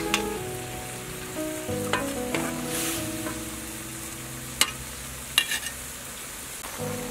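A metal spatula scrapes and clinks against a wok and plate as stir-fried beef and bell peppers are scooped out, with a few sharp clinks, the loudest about four and a half seconds in. A light sizzle runs throughout, over soft background music.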